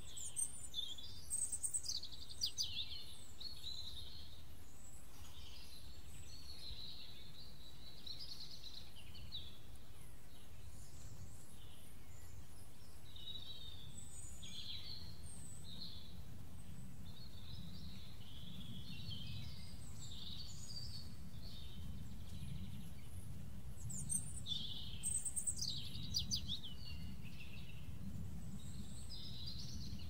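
Forest ambience with birds chirping and calling over a steady low rumble. Clusters of sharper, louder calls come near the start and again near the end.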